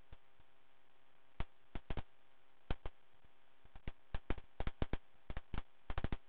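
Sharp clicks, about twenty, coming irregularly and partly in quick clusters from about a second and a half in, over a faint steady hum.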